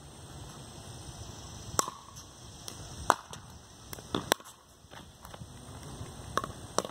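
Pickleball rally: about six sharp, irregularly spaced pocks of paddles striking the plastic ball and the ball bouncing on the concrete court.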